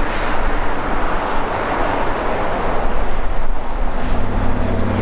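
Air France Airbus A380's four Engine Alliance GP7270 turbofans running at taxi power, a steady jet rush. A low hum joins about four seconds in.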